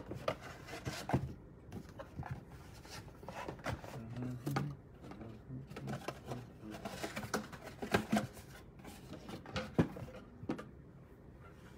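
Scattered light knocks and clicks of objects being handled, irregular and unhurried, the sharpest near the end.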